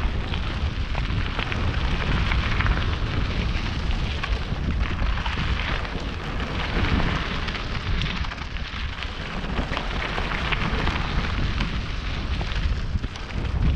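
Mountain bike rolling down a loose gravel and rock trail: tyres crackling and rattling over stones without a break, under steady low wind noise on the helmet camera's microphone.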